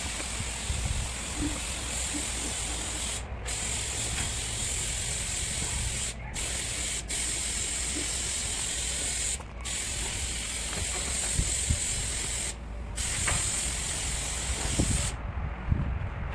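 Paint spray gun hissing as it sprays grey paint in long passes, with short breaks every few seconds between passes; the spraying stops about a second before the end.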